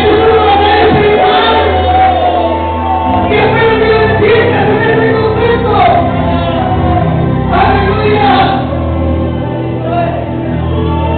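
Music: voices singing over sustained, held instrumental chords.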